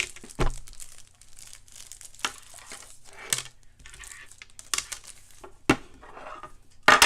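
Packaging crinkling and tearing in short, irregular bursts as an item is unwrapped by hand, with a few sharp clicks among them.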